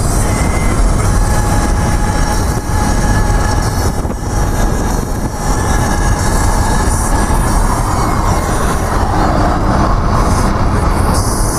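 Loud, steady road noise in the cabin of a moving car: tyres rumbling on the pavement with wind and engine drone.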